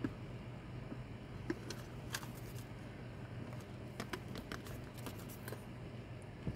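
Scattered light clicks and scrapes from a small plastic electric cooking pot with a nonstick interior being handled and tilted, coming in short clusters over a steady low hum.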